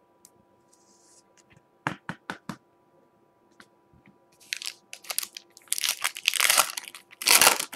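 A few light taps, then a Prizm basketball card pack's foil wrapper being torn open and crinkled, the crackling loudest near the end.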